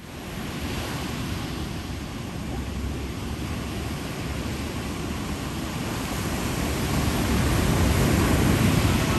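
Ocean surf: waves breaking and rushing in, a steady wash that grows louder toward the end as a larger wave breaks.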